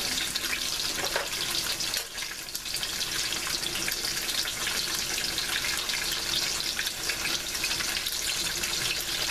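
Firm tofu sticks frying in a deep layer of hot oil in a stainless steel pan, giving a steady sizzle with fine crackles.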